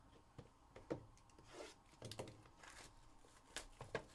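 Faint taps, clicks and rustling of hands handling cardboard trading-card hobby boxes and their plastic wrap, with a few sharper clicks about a second in and near the end.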